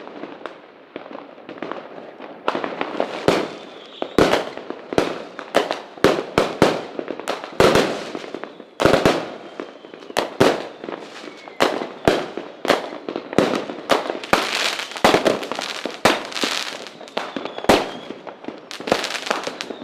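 Fireworks going off in a continuous barrage: sharp bangs every second or so at irregular intervals, with crackling between them.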